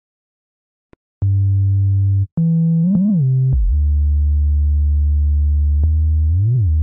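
Synthesized 808 bass line played on its own: long, deep held notes that start about a second in and change pitch a few times, with a quick slide up and back down about three seconds in and again near the end.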